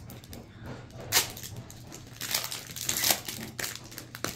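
Wrapper of a Panini Prizm trading-card pack crinkling and crumpling as it is handled and opened. The crackles come in irregular bursts, loudest about one second in and again around two to three seconds in.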